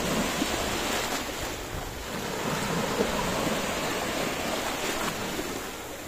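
Shallow seawater splashing and small waves washing in: a steady rushing water noise that eases slightly near the end.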